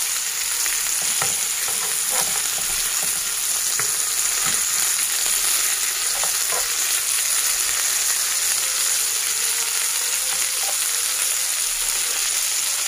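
Breaded chicken rolls sizzling steadily as they fry in oil in a pan, with a few light clicks of metal tongs as they are turned.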